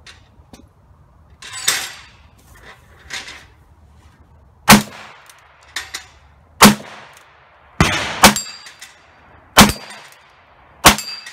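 Ruger Blackhawk .357 Magnum single-action revolver firing .38 Special loads: a string of sharp shots about one to two seconds apart, with steel plates ringing as they are hit. A softer metallic clatter comes before the first shot.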